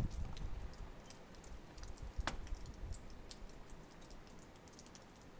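Wind buffeting the microphone in low rumbling gusts, with scattered light ticks and clicks, one sharper click a little past two seconds in.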